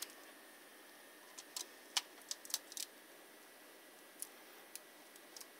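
Faint, scattered light clicks and ticks, about ten over a few seconds: hands working a rolled-up piece of tape in against a bare hard drive in a plastic games console.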